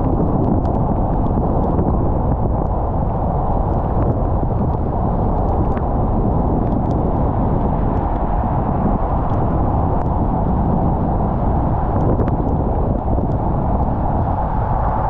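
Car driving in the rain: a steady low rumble of road and engine, with scattered faint ticks throughout.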